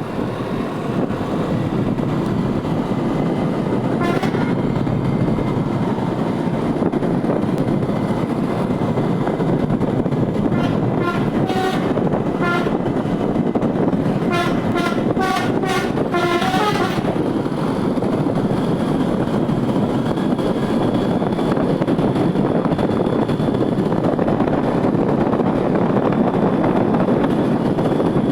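A bus's DAV musical air horn (telolet) playing quick runs of short notes from about ten to seventeen seconds in, after a brief toot about four seconds in, over the steady running noise of the bus.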